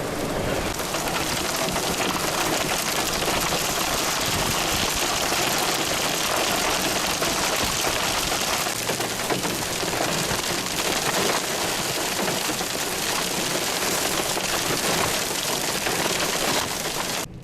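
Heavy storm precipitation pelting down hard in a dense, steady patter, cutting off abruptly at the end.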